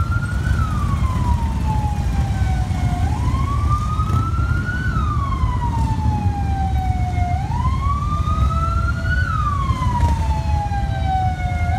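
A stream of Harley-Davidson V-twin motorcycles rumbling past in a parade. Over the engines a siren wails slowly up and down, one rise and fall about every four and a half seconds.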